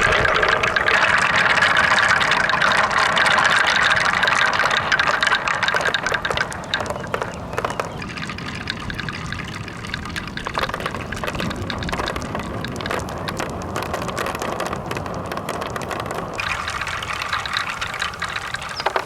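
Marbles rolling down wooden slopes and plastic rain-gutter rails, a continuous rolling rumble. It is loudest over the first several seconds, then drops to a quieter rolling with scattered small clicks.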